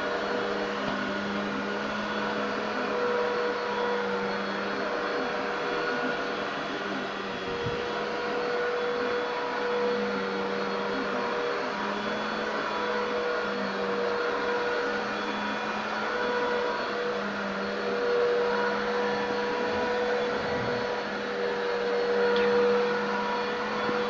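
Upright vacuum cleaner running steadily as it is pushed over carpet: a constant motor hum with a steady whine over the rush of air.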